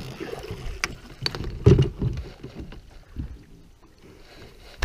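Scattered knocks and clicks of gear and feet against a small fishing boat's deck, with a low rumble about two seconds in and a sharp click at the very end.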